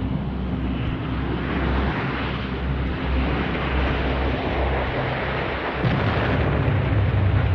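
Loud, steady roar of a jet aircraft over a deep rumble, swelling a little about six seconds in.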